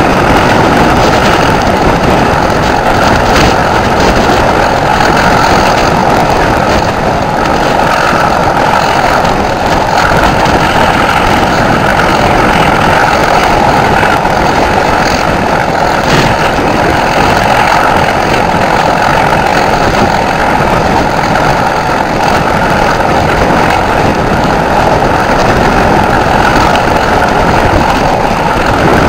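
Class 31 diesel locomotive's English Electric 12SVT V12 engine working a passenger train, heard from an open coach window behind it. It is loud and steady, mixed with rushing wind and the rumble of wheels on the rails.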